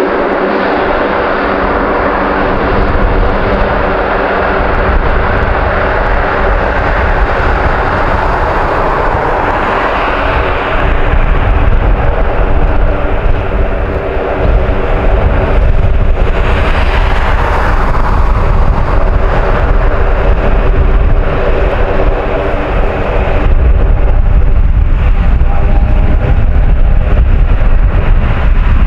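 Four turboprop engines of a Lockheed C-130 Hercules running, a steady drone made of several held tones over a broad rushing noise. It grows louder about ten seconds in and again near the end.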